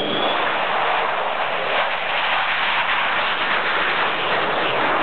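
The twin General Electric J79 turbojets of an F-4 Phantom at takeoff power as the fighter lifts off and climbs away: a loud, steady rushing jet noise.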